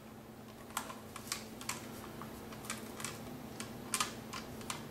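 Light, irregular clicks and ticks of pliers gripping and bending wire coat-hanger wire, about ten in all, unevenly spaced.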